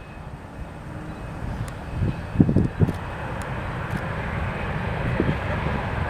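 Airbus A350-900 jet airliner with Rolls-Royce Trent XWB engines arriving: a steady jet rumble and hiss that slowly grows louder as it nears. A few short low thumps of wind on the microphone about two seconds in.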